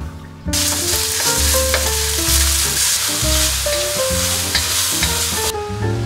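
Minced meat sizzling in a hot wok, starting abruptly about half a second in and cutting off shortly before the end, over background music with a melody.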